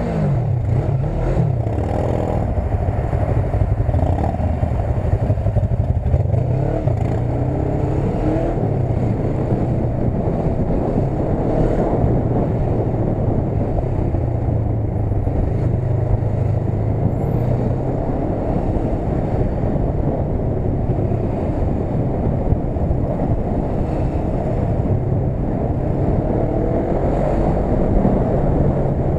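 Motorcycle engine running at low revs while riding slowly, its pitch rising and falling with small throttle changes in the first few seconds, over steady wind and traffic noise.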